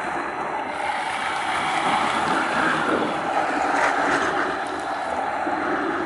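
Kinki Sharyo light rail tram running past at close range: a steady rumbling hiss of wheels on rail, swelling a little about halfway through.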